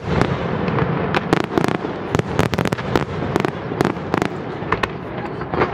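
Aerial fireworks display: a rapid, irregular string of sharp bangs and crackles, several a second, over a continuous low rumble of bursts.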